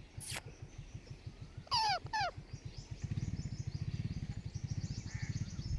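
Parrot giving two loud squawks that fall in pitch, about two seconds in, over faint high chirping of small birds. A low steady throbbing comes in about three seconds in.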